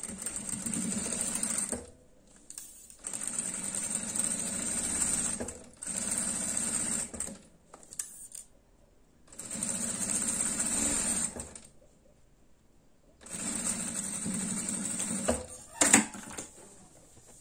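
Domestic sewing machine stitching fabric in several short runs, stopping and starting with pauses in between, as bias tape is sewn onto a bag. Near the end there is one sharp click.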